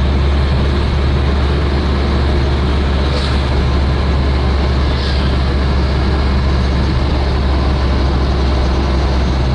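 Cabin noise inside a moving minibus taxi: a steady low engine drone with road and tyre noise, and two brief higher hisses about three and five seconds in.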